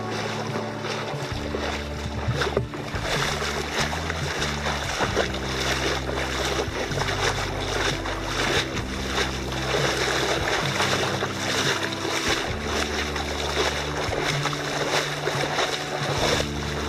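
Legs wading through shallow seawater, splashing with each stride, over background music with sustained low chords.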